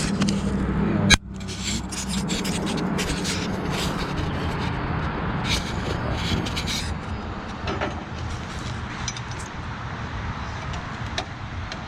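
Hand tools scraping and clinking on the skidder winch's metal parts as its spring is refitted, with a sharp knock about a second in, over a steady low machine hum.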